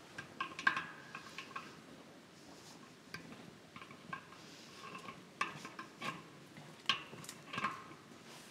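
Light, irregular metallic clinks and taps of a hand wrench on the nuts and washers of concrete anchor bolts at the foot of an air compressor tank.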